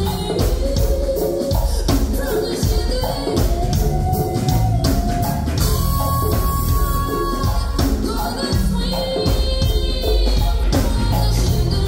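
Live band playing: electric bass, drum kit and congas with singing, loud and steady with a regular beat and long held notes.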